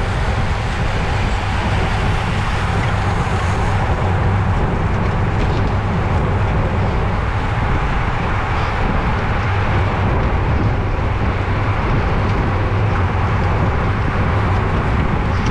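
Steady rush of wind on a bicycle-mounted camera's microphone, with road and tyre noise from riding at race speed.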